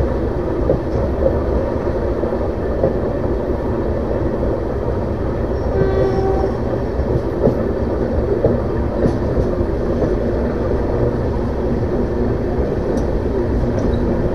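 Steady rumble, rail noise and wind of a moving Indian passenger train, heard from an open coach door while it runs alongside a line of goods wagons on the next track. A short horn note sounds about six seconds in, and a few faint clicks come later.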